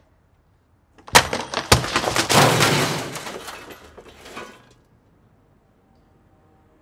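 A sudden crash about a second in: a few sharp hits and a rapid clatter of something breaking, the shattering dying away over about three seconds.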